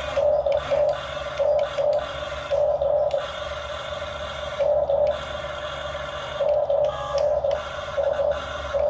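RC excavator's small electric drive motors whining steadily, rising in repeated short surges as the controls are worked.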